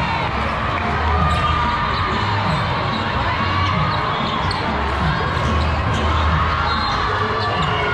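Steady din of a large hall with several volleyball matches going at once: a mix of many voices, with volleyballs being hit and bouncing off the courts.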